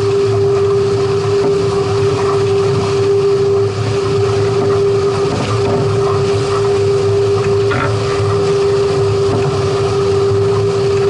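Boat under way on the water: steady rushing wind and water noise with a constant droning hum that holds one pitch throughout.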